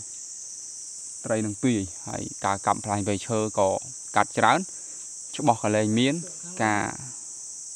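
Steady high-pitched drone of insects, crickets or cicadas, with a man talking over it for most of the time.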